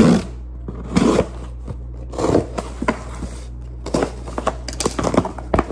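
Cardboard shipping box being cut and pulled open: irregular bursts of scraping and tearing about a second apart, with a quicker run of small clicks and scrapes near the end.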